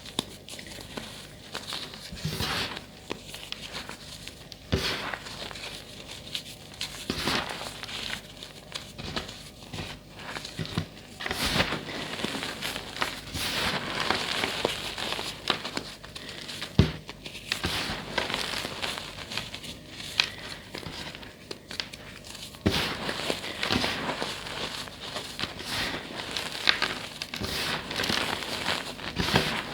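Blocks of reformed gym chalk being crushed and crumbled by hand: a steady dry crunching and crackling, with sharp irregular snaps as pieces break.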